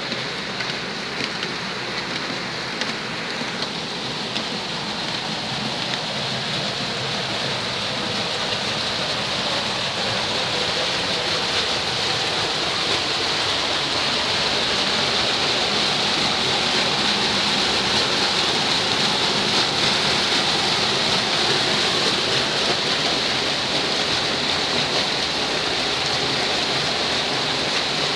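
Heavy rain falling steadily, growing gradually louder over the first half and then holding.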